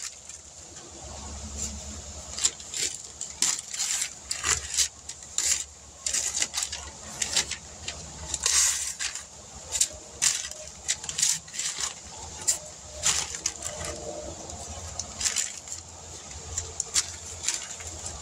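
Newspaper masking and painter's tape being peeled off a truck fender and crumpled by hand: irregular crackling and tearing, with a low rumble underneath.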